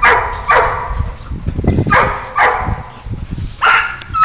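Dogs barking in play: sharp barks coming in pairs about half a second apart, three pairs with short pauses between.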